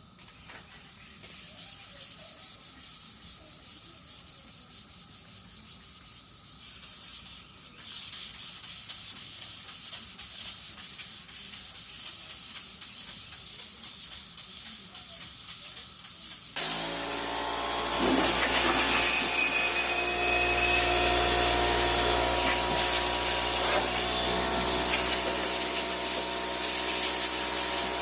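Faint steady rubbing and brushing, then about two-thirds of the way in a powered machine starts up and runs steadily with a low hum and a loud hissing rush of air.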